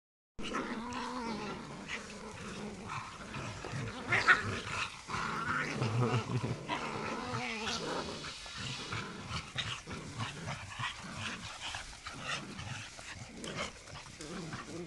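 A dog and puppies growling and scuffling as they tug at a rope toy in play, with one sharper, louder sound about four seconds in.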